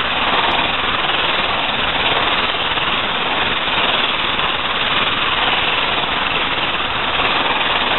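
Electric mixer running steadily, its beaters churning through cake batter in a bowl.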